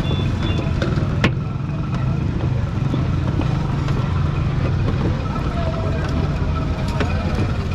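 Street ambience dominated by a steady low engine rumble, with faint voices and a single sharp click a little over a second in.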